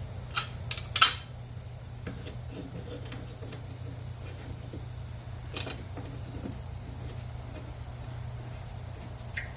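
Metal clinks and clanks of lawn mower blades and tools being handled, several sharp knocks with the loudest about a second in and a quick cluster near the end, over a steady low hum.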